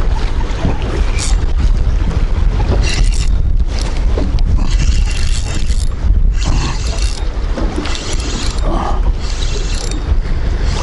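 Wind buffeting the microphone on an open boat, a constant low rumble, with gusts of hiss and water against the hull coming and going.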